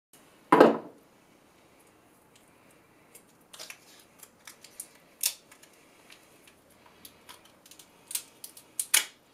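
Lithium-polymer pouch cell being peeled apart by hand: crinkling of its foil pouch and wrap, with scattered sharp clicks and crackles. The loudest sound is a single short one about half a second in.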